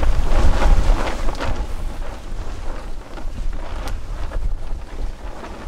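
Wind buffeting the microphone: a low rumble, heaviest in the first second and a half, then easing. Faint clicks and rustles of hands handling food come through underneath.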